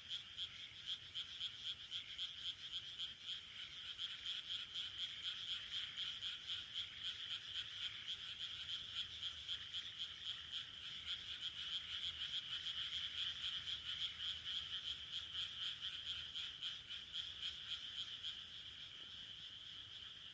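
A chorus of rice-paddy frogs croaking: many overlapping calls that swell and fall about three times a second, easing into a softer, steadier chorus near the end.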